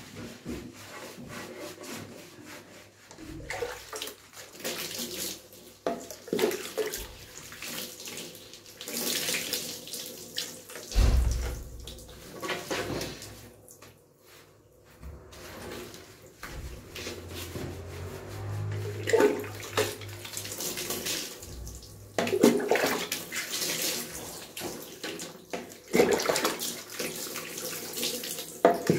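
Hands scrubbing shampoo lather into a wet dog's coat in a bathtub, with irregular splashing and sloshing of water, and a dull thump about a third of the way in.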